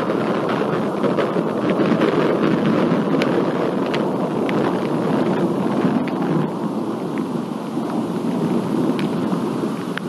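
Thunder rumbling on without a break through a storm, easing slightly near the end, with a few scattered sharp ticks over it.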